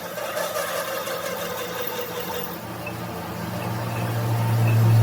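A steady low mechanical hum, a motor or engine running, that comes in about halfway and grows louder toward the end.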